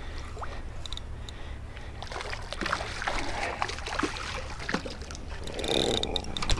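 A hooked bonnethead shark thrashing and splashing at the water's surface as it is reeled in, the splashing picking up about two seconds in. A steady low wind rumble on the microphone runs underneath.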